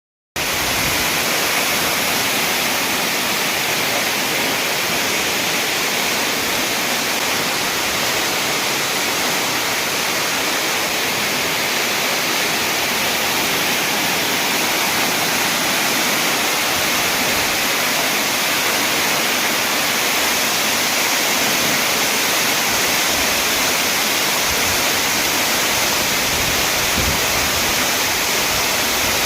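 Waterfall: water falling and splashing in a steady, loud rush that holds without change.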